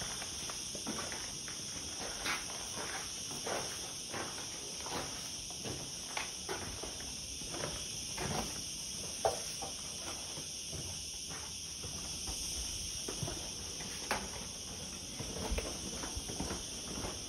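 Footsteps scuffing and crunching on grit and gravel over a concrete floor, irregular and scattered, over a steady, high-pitched chorus of insects.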